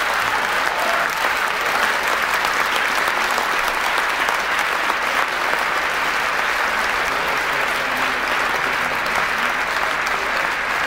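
Large audience giving a standing ovation: dense, steady clapping that holds at an even level throughout.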